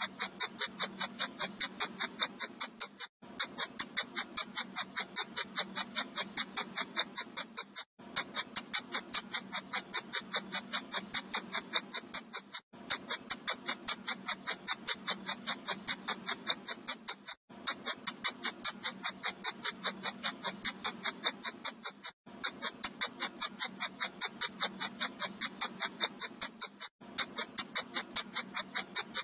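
Mosquito-repellent sound: a rapid, even train of high-pitched clicking pulses that breaks off for an instant about every five seconds and starts again unchanged, as a loop.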